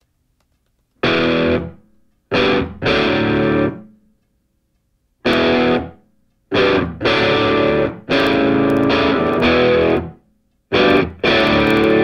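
Music: loud chord hits played in short stabs, each broken off by complete silence, the first about a second in.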